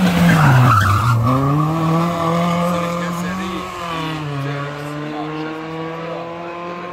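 Hill-climb race car, a small hatchback, passing close under hard throttle. Its engine note falls as it sweeps past, then climbs as it accelerates away up the hill, drops at a gear change about four seconds in, and climbs again.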